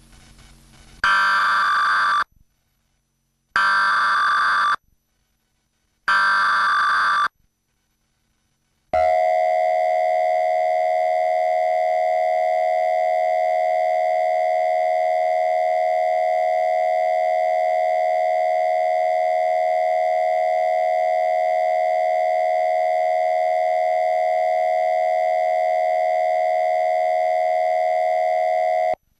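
Emergency Alert System test signal: three short data-header bursts of electronic screeching about a second each, then the steady two-tone attention signal, which holds for about twenty seconds and cuts off suddenly.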